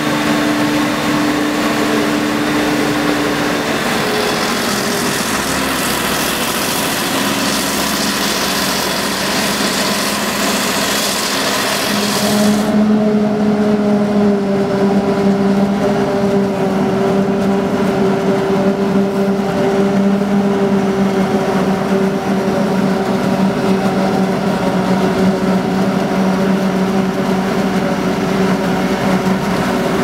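Claas Jaguar 940 forage harvester running steadily under load while chopping maize: an engine drone with a bright rushing hiss of crop through the machine. About twelve seconds in, the hiss drops away suddenly, leaving a steadier, deeper engine hum.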